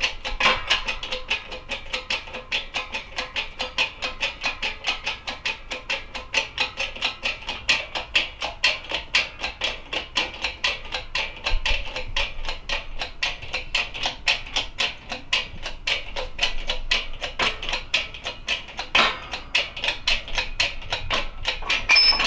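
Background music with a steady beat of about four strokes a second, which stops at the very end.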